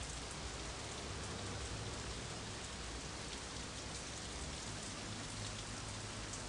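Steady rain falling, a soft, even hiss.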